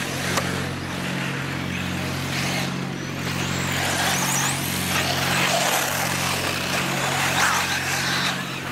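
1/8-scale electric RC buggies racing on a dirt track: high electric-motor whines that rise and fall as the cars accelerate and brake, with tyre and dirt noise, over a steady low hum.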